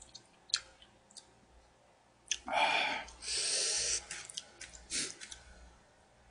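Eating sounds: wooden chopsticks clicking against food containers and a rice bowl, with two louder stretches of mouth noise a little over two seconds in, the second a steady hiss lasting nearly a second.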